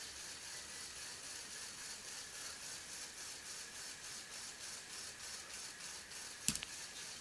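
Lego Technic Unimog U400's motor-driven pneumatic pump running steadily, a faint whirring hiss with a quick, even pulse as it builds air pressure for the crane. One sharp click near the end.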